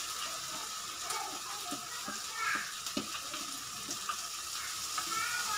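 Tomato masala sizzling in a steel kadai over a gas flame as a curd and spice mixture is poured in and stirred, with scattered light scrapes and taps of a metal spoon against the pan.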